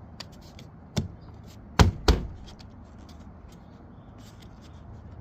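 Plastic side-mirror cap pressed onto the mirror housing: a sharp click about a second in, then two louder snaps close together near two seconds as its tabs lock into their holes, with small handling clicks.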